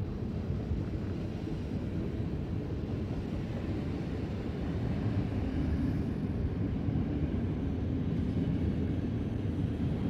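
Electric trains rolling through a station: the rumble of a passing ICE high-speed train, then a red S-Bahn electric multiple unit rolling slowly in along the platform. The rumble grows louder from about halfway, with a steady low hum added.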